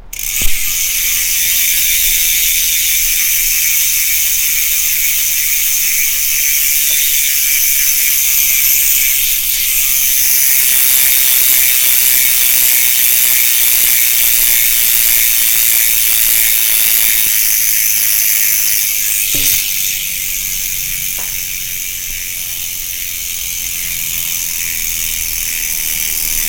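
The rear freehub of a Superteam Power 2019 carbon wheel buzzing as the wheel freewheels: a rapid, continuous, high-pitched ratcheting of the pawls. A knock comes about two-thirds through, and the buzz is a little quieter after it.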